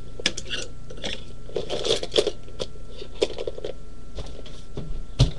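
Small makeup items clicking, clattering and rustling as someone rummages through them by hand looking for a brush, with a dull thump near the end.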